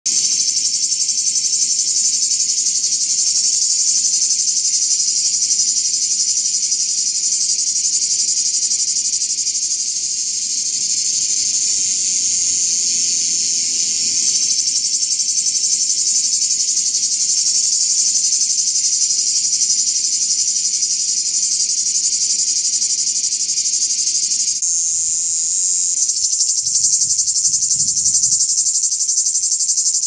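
Cicada singing: a continuous shrill, high-pitched buzz, made by its tymbals, with no breaks. The buzz shifts slightly in tone near the end.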